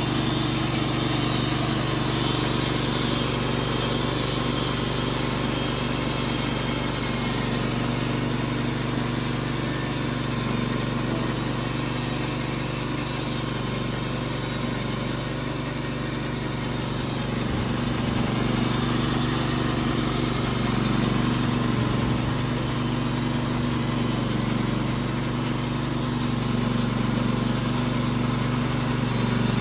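TimberKing 1220 bandsaw mill running steadily: its engine drives the band blade through a cherry log as the sawhead travels along the cut.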